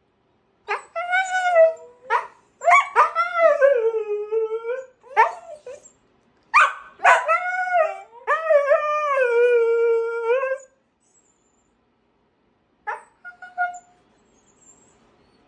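A husky and another dog screaming in long, wavering howls that rise and fall in pitch, one call after another, then a pause and a few short yips near the end.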